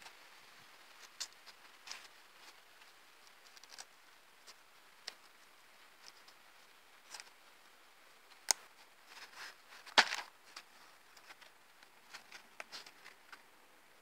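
Handling noise from a hunting knife in its leather sheath, with the sheath's press-stud strap being worked: scattered light clicks and rustles. Two sharper clicks come about a second and a half apart, a little past the middle.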